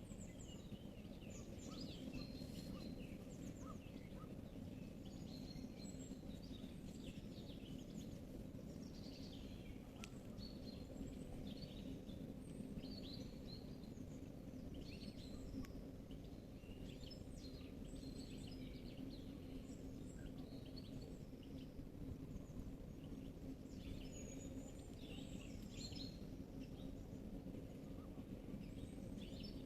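Several songbirds singing, with short chirps and trills from different birds throughout, over a steady low background rumble.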